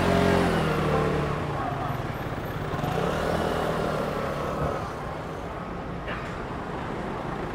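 City street sound: a delivery truck's engine running close by, loudest at the start and slightly falling in pitch before fading over the first two seconds, then the chatter of people at outdoor restaurant tables.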